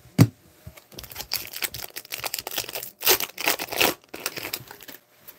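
Foil wrapper of an Upper Deck hockey card pack being torn open and crinkled: a sharp click near the start, then a few seconds of quick crackling rustles.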